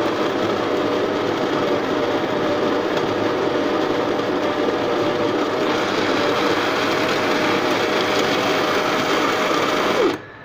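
Espresso machine pump running with a loud steady buzz while pulling a shot into the cup, then stopping suddenly about ten seconds in.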